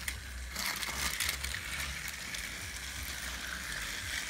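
Battery-powered Thomas and Friends toy engines running on plastic track: a steady motor whine with a low hum, and a few clicks of wheels and parts rattling in the first second or so.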